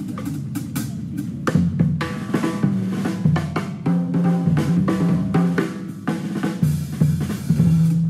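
Jazz band playing live, with the drum kit to the fore: quick, dense drum strikes over low pitched notes.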